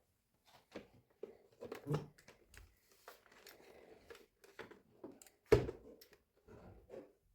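Scattered light clicks and knocks of a switched-off robot vacuum being handled, with faint rustling between them. The sharpest knock comes about five and a half seconds in.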